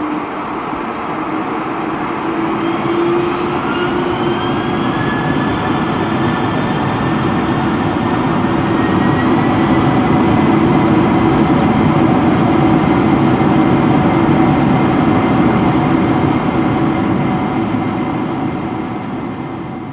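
Jet airliner engines spooling up: a whine that rises in pitch over a rush of engine noise, which grows louder through the first half and eases off near the end.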